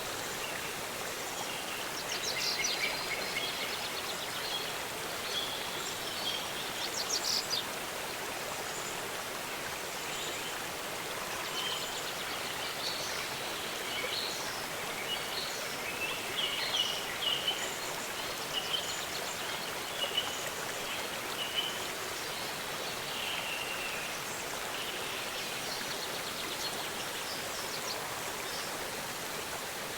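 Waterfall rushing steadily, with birds calling over it in short high chirps and trills, in a few bursts early on and many calls through the middle.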